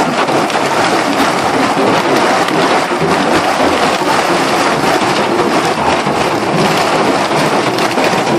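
Hailstorm: hailstones pelting down in a dense, steady clatter of countless small impacts.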